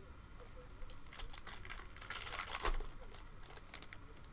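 Trading-card pack wrapper from a Panini Prizm football blaster crinkling and being torn open, a run of crackles that builds to its loudest rip about two and a half seconds in, then tapers off.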